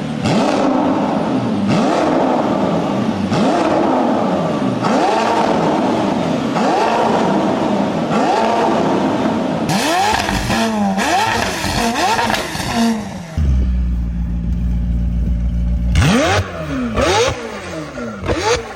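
McLaren twin-turbo V8 exhaust accelerating hard, the engine note climbing and falling again about every second and a half. A few seconds of steady low drone come after about thirteen seconds in, then more rising revs near the end.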